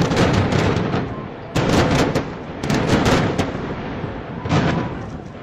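Explosive demolition charges going off at the base of power-plant smokestacks: a string of sharp, loud bangs in four quick clusters, each trailing off in an echo.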